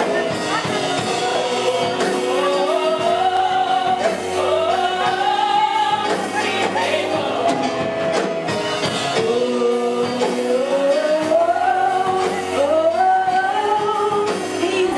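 Gospel singing with live accompaniment: a voice sliding up and down between held notes over steady sustained chords and a low bass line.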